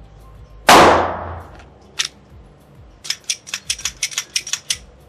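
A 9mm Glock 48 pistol fires a single loud shot less than a second in, with a long ringing tail. A sharper, shorter crack follows about a second later, then a rapid string of about a dozen fainter gunshots.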